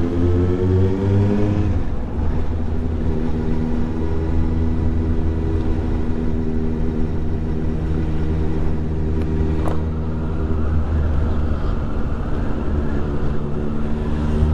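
Kawasaki ZXR motorcycle engine under way. The engine note rises, breaks off about two seconds in, then holds steady at a lower pitch.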